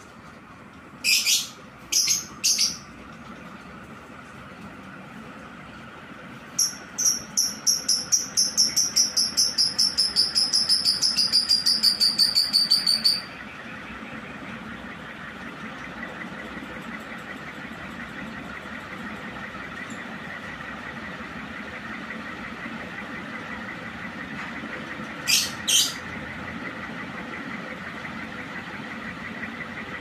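Matsunichi CS-149 remote-controlled ceiling fan running with a steady hum and rush of air, over which come short high-pitched electronic beeps, most likely from its remote receiver: a few near the start, a fast run of beeps lasting several seconds, then two near the end. After the run of beeps the fan's hum grows louder, with a faint steady whine.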